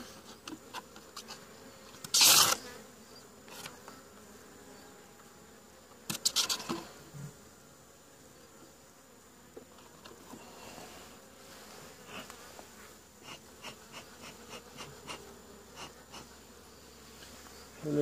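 Honeybees buzzing around an open wooden hive while its frames are handled, with two brief louder noises about two and six seconds in and a few light clicks near the end.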